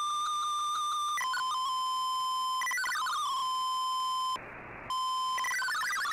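MFSK digital-mode signal from a shortwave broadcast, heard through a communications receiver. The steady tone of an MFSK picture transmission, with faint regular ticks, ends about a second in. A few held and stepping tones follow, then a brief half-second of plain hiss. Near the end comes the rapid hopping multi-tone warble of MFSK text data.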